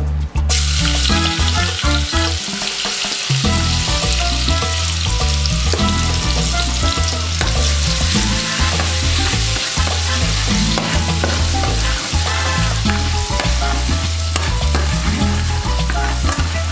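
Chopped garlic sizzling as it fries in hot oil in a metal pot, stirred with a metal ladle. The steady sizzle starts about half a second in.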